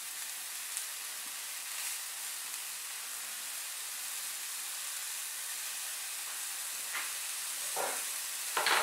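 Tuna steaks searing in a hot frying pan, a steady sizzle, with a few brief short sounds near the end.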